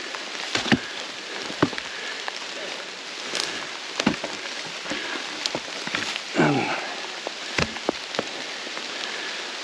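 Logs and branches being dropped and stacked, a series of irregular wooden knocks and clunks over a steady hiss.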